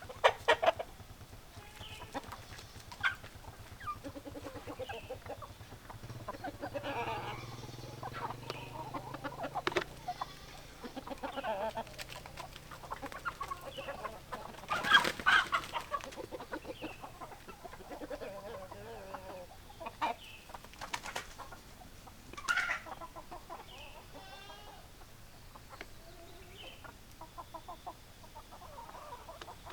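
Chickens clucking on and off, with a few louder, sharper calls: near the start, about halfway through and about two-thirds of the way through.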